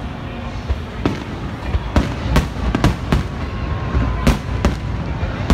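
Aerial fireworks shells bursting overhead: a run of sharp bangs, sparse at first and coming thick and fast from about two seconds in, over a steady low rumble.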